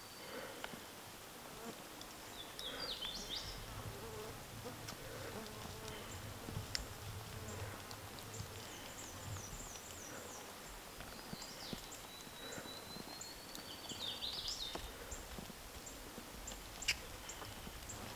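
Woodland songbird singing: a long rising whistle that breaks into a quick tumble of notes, given twice about eleven seconds apart, over a low steady hum. A single sharp click about seventeen seconds in is the loudest sound.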